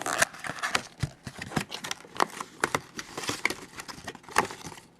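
Wrapper of a hockey card pack crinkling and tearing as it is handled and ripped open: a string of short, sharp crackles and snaps.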